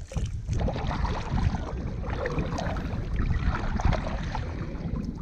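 Kayak paddling off from a beach: irregular water splashes and sloshing against the hull, over a low rumble of wind on the microphone.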